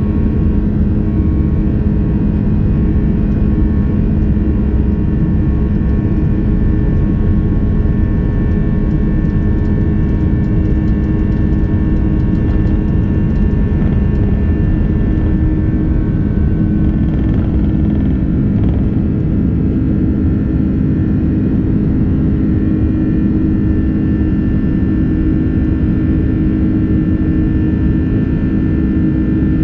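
Airbus A330-200 cabin noise in the climb after takeoff: the jet engines and the airflow make a steady, loud rumble with a few hum tones. The tones shift slightly in pitch about halfway through.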